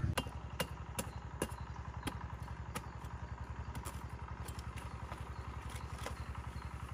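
A small engine idling steadily, with irregular sharp clicks and knocks over it, most of them in the first few seconds.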